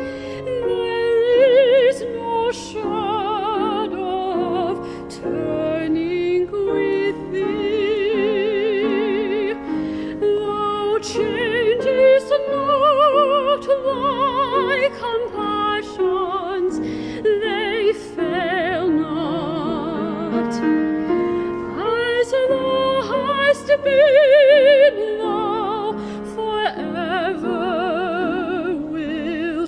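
A woman singing a solo in a classical, operatic style with strong vibrato on her held notes, accompanied by piano.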